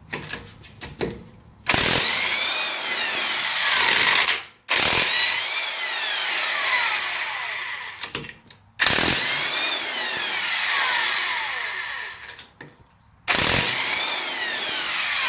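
Corded electric 1/2-inch drive impact wrench hammering lug nuts loose, nuts torqued to 85 foot-pounds: four runs of three to four seconds each, each with a whine that rises then falls, after a few light clicks at the start.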